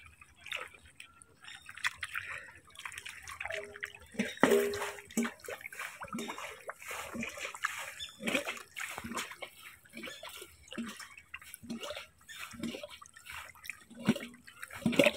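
Small stranded fish flapping in a shallow muddy puddle: a run of small, irregular wet slaps, splashes and drips, roughly two a second, with a louder splash about four seconds in.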